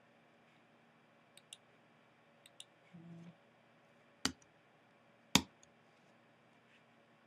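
Clicks from a computer mouse and keyboard: two pairs of faint clicks in the first few seconds, then two sharper, louder clicks about a second apart past the middle.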